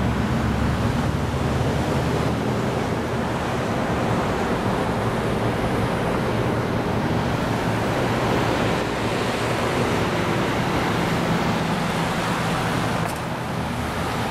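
Steady wind rushing over the microphone, with a low rumble of road traffic underneath.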